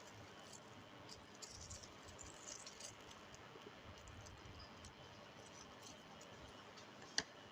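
Faint rustling and light scraping clicks of hands working the cut end of a coaxial CCTV cable, readying it for a BNC connector, with one sharp click near the end.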